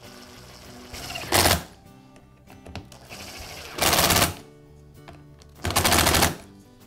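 Cordless screwdriver driving screws into the cut-off saw's air filter base in three short bursts of whirring with a rapid clatter: a brief one about a second in, then two longer ones at about four and six seconds. Background music plays throughout.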